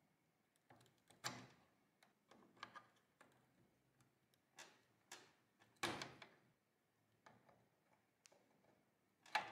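Pliers clicking and scraping against the push-on wire connectors of a heater's control circuit board: a handful of sharp little clicks, spaced unevenly, with near silence between them.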